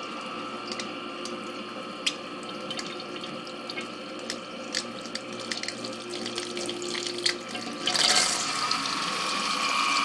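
Submersible sump pump running without pumping, water spurting from its thin vent pipe, a steady hum with light ticking; about eight seconds in it catches and begins pumping the crock out, and the sound of rushing water gets clearly louder.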